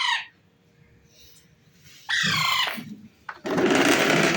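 Pet parrot squawking: a short call falling in pitch about two seconds in, then a longer, harsh, noisy screech a second later.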